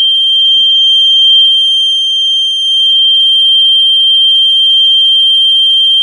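Piezo beeper sounding one continuous high-pitched tone. It is the stand-in load on a microwave radar motion-sensor switch, so the tone means the switch's output is on and its roughly 30-second timer is running.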